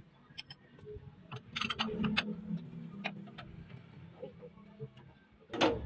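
Scattered light metallic clicks and taps from hands and tools working at the injection pump drive coupling of a Fuso 8DC9 diesel, with a faint low hum in the middle.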